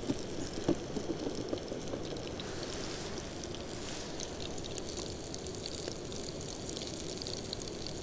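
Fish cutlets frying in oil in a pan over a small wood fire: a steady sizzle with scattered small pops and crackles.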